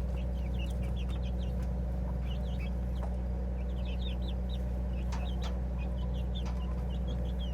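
Baby chicks peeping: many short, high chirps in quick runs, over a steady low hum.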